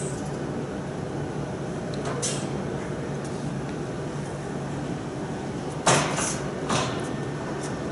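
Steady hum of factory machinery. About six seconds in, as a pneumatic lifting arm's scissor gripper takes up a bag, there is a sudden loud burst of noise, then two shorter ones.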